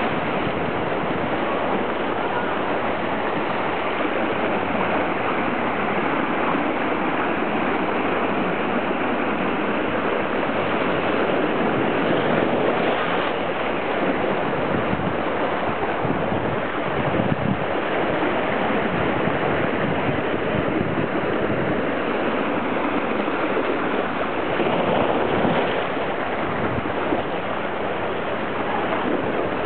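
Small waves washing and churning in shallow seawater at the shore, a steady rushing noise.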